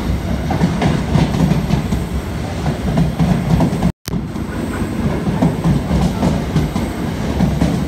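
Container freight train's wagons rolling past close by: a continuous loud rumble of steel wheels on the rails. The sound cuts out completely for an instant about halfway through.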